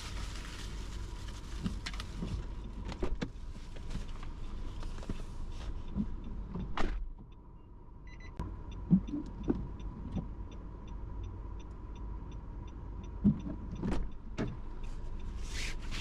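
Car cabin noise at low speed: a steady low rumble with a few soft thumps. From about halfway in, an even ticking of about three clicks a second, typical of the turn-signal relay.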